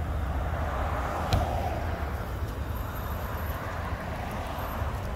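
Steady street traffic noise with a low rumble, and a single short click about a second and a half in.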